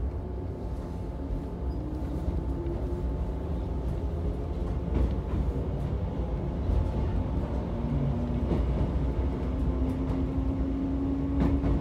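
Electric commuter train pulling out of a station, heard from inside the carriage: a steady low rumble with a motor whine that rises in pitch as the train accelerates.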